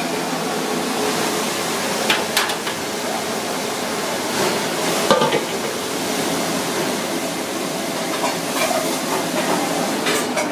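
Kitchen noise: a steady hiss with a few sharp clinks and knocks of pans and utensils, two about two seconds in, one near the middle and one later on.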